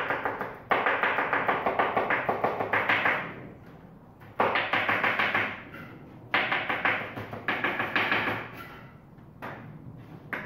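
Kitchen knife rapidly chopping spring onion on a wooden cutting board, about five chops a second, in several runs with short pauses between.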